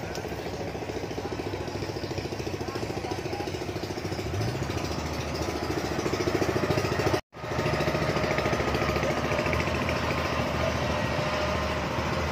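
Diesel engines of Kubota DC70 combine harvesters running as the machines drive closer, growing louder over the first several seconds. The sound cuts out for an instant a little past halfway, then continues steadily.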